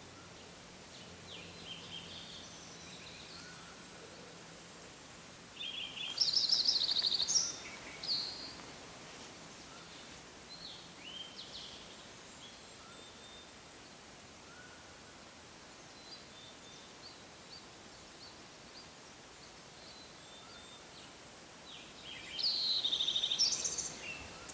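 Forest birdsong: twice, a loud song opens with a short phrase and runs into a fast high trill, the second about sixteen seconds after the first, with softer scattered chirps and calls between, over a faint steady hiss of outdoor background.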